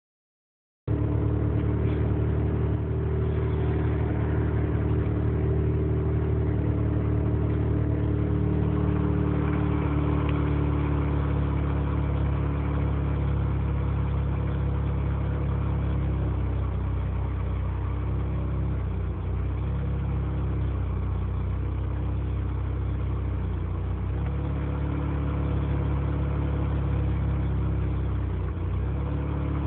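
Mazda 20B three-rotor rotary engine in an RX-7 idling roughly and unevenly, its pitch wavering slightly, starting just under a second in.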